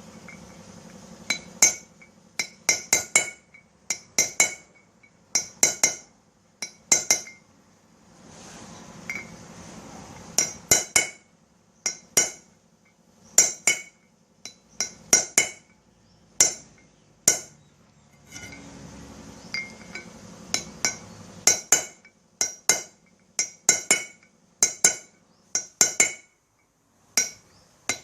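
A hammer striking a pointed steel punch into a wheel hub's bearing bore again and again, in quick runs of a few sharp metallic clinks with short pauses between. This is staking the worn, loose bearing seat all round to raise the metal so the bearing will fit tight.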